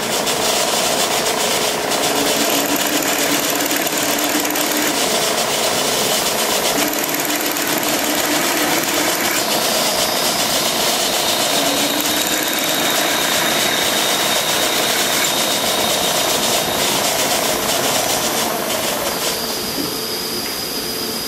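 Shop drilling machine running, its drill bit cutting down into the head of a seized steel action screw in a Mauser 1895 rifle's trigger guard to drill it out. The sound is steady, with faint whining tones that come and go, and eases slightly near the end.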